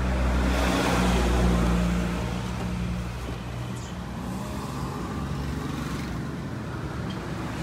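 Small electric sewing machine motor running with a steady hum, louder for about the first three seconds and then dropping to a lower, quieter hum.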